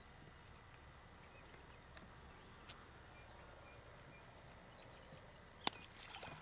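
Near silence: faint outdoor background with a few faint high chirps. A single sharp click or knock sounds about five and a half seconds in, followed by a few weaker clicks.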